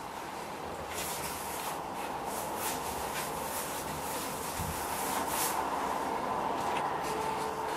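Paintbrush bristles brushing gloss paint onto woodwork: soft, irregular swishing strokes, several a few seconds apart, over a faint steady hum.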